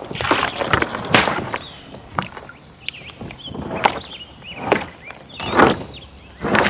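Kayak paddle strokes: the blade swishing and splashing through the water in short strokes roughly a second apart.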